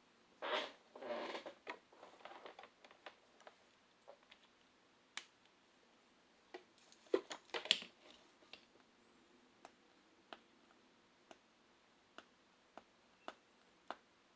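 Light clicks and taps from handling a tablet and its small parts during a touchscreen repair. A brief scraping rustle comes near the start, a quick cluster of clicks comes about halfway, and then single soft ticks follow every second or so.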